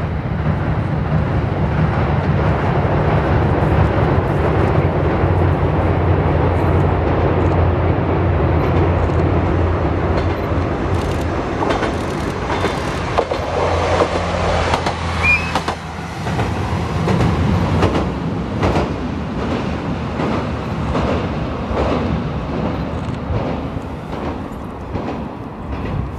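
Tarumi Railway Hi-Mo 295 diesel railcar passing, with a steady engine drone that dies away about 16 seconds in, and rail clatter with irregular sharp clicks through the second half.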